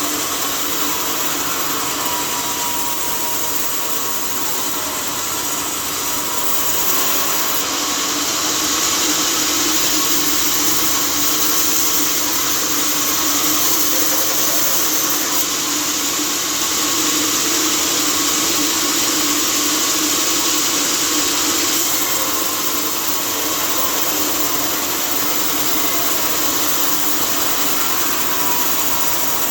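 Sawmill saw running steadily with a constant hum and hiss. It grows louder and hissier from about seven seconds in until about twenty-two seconds, as when the blade is cutting through a log, then settles back.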